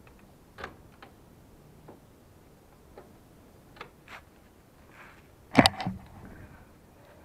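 A few light, irregular clicks from a scooter's kick-start lever being pushed down by foot, the engine not turning over, which the owner puts down to a new spark plug that is too long. A louder clatter about five and a half seconds in as the camera is picked up.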